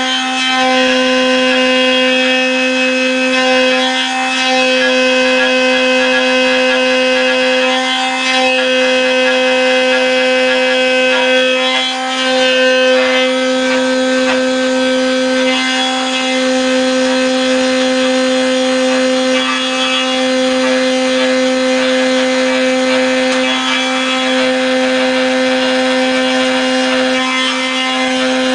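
CNC router spindle running with a steady high whine while its cutter surfaces a wooden board, the rasp of the cut riding over the whine.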